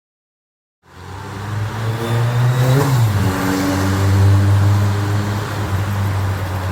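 A road vehicle's engine running close by, cutting in about a second in, with a brief shift in engine pitch about three seconds in, then running steadily.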